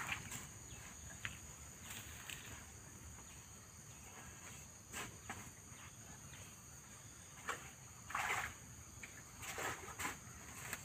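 Quiet outdoor ambience: a steady high insect drone over a faint low rumble, broken by a few short scuffs.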